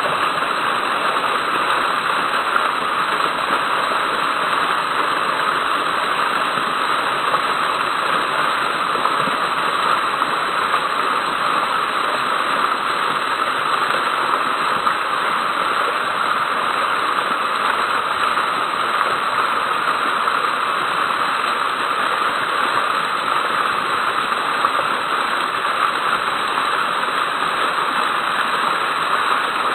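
Water jets of a garden fountain spraying up and falling back into the basin: a loud, steady rushing splash that does not change.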